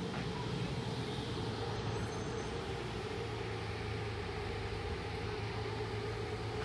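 Steady outdoor background noise with a low hum. A brief, very high-pitched whine sounds for about a second, around two seconds in, and is the loudest thing heard.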